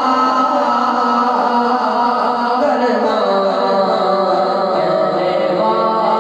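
A man's voice singing a naat into a handheld microphone in long, held melodic lines.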